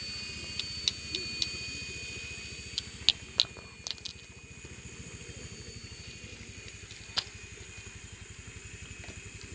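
Fw 450 electric RC helicopter flying overhead: a steady whirring rotor sound with a fast low beat and a thin high whine. Several sharp clicks cut through it, most in the first four seconds and one about seven seconds in.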